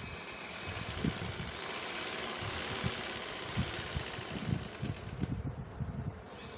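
Domestic sewing machine running steadily as it stitches a pleat into cotton trouser fabric. It stops briefly about five and a half seconds in, then starts again.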